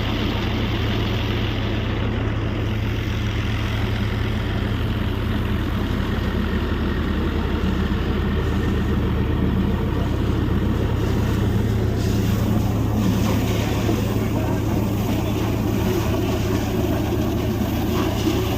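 Borewell drilling rig running steadily: a loud, even engine drone with a noisy rushing haze over it, a little brighter about two-thirds of the way in.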